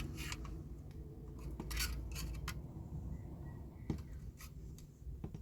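Metal tool scraping and clicking against the diecast base of a toy coach while working its crimped tabs loose, with a few light clicks scattered through over a low steady hum.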